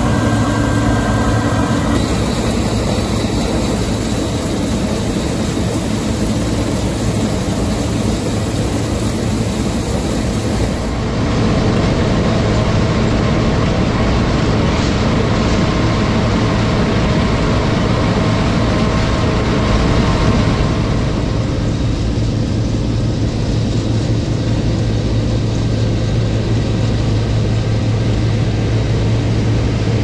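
New Holland combine harvester running while its pickup header lifts windrowed barley into the feeder: a steady engine and machinery drone with a constant low hum. The sound changes abruptly about two, eleven and twenty seconds in.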